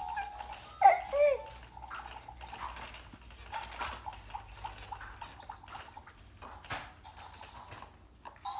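A baby's short, high squeal about a second in, over faint electronic beeping tones from a toy that sounds like a slot machine, with a few soft knocks.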